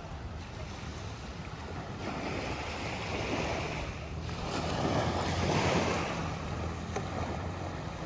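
Small waves washing up on a sandy shore, surging twice, louder the second time about five to six seconds in, with wind rumbling on the microphone underneath.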